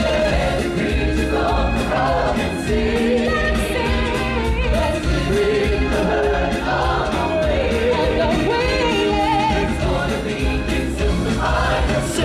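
Stage-show singers performing a song with a choir-like sound over a band backing track with a steady bass.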